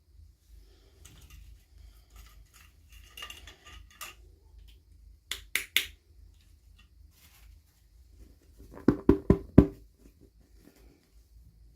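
Small plastic toy pieces and packaging being handled during an unboxing: scattered light clicks and rustles, two sharper clicks about halfway, and a quick run of four louder taps near the end.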